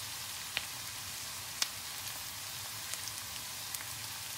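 Sliced onions and garlic frying in coconut oil in a wok: a steady sizzle with a few sharp crackles and pops.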